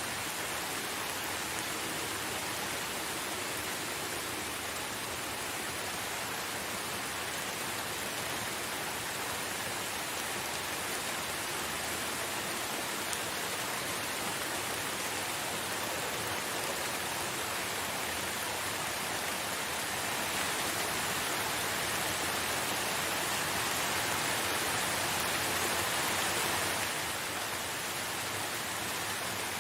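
Steady rainfall, an even hiss of many drops with no single strikes standing out. It grows a little louder about two-thirds of the way through, then drops back abruptly near the end.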